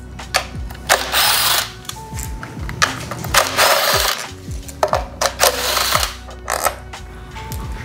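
Cordless impact driver run in several short bursts, each trailing off as its motor spins down, while it backs out the timing belt cover bolts on a 2JZ engine.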